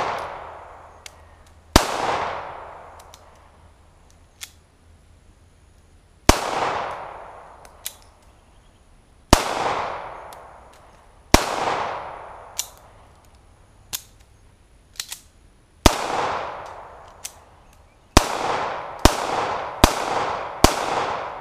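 A 9mm semi-automatic pistol fired nine times, each shot trailing off over a second or so. The shots come slowly at first, several seconds apart, then four come about a second apart near the end. There are fainter clicks in the gaps between shots.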